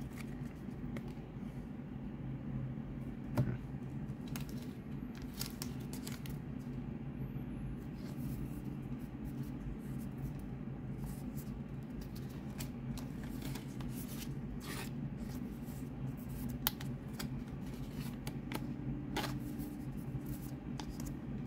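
Pokémon trading cards being flipped through by hand, each card slid from the back of the stack to the front: irregular clicks and scrapes of card stock over a steady low hum.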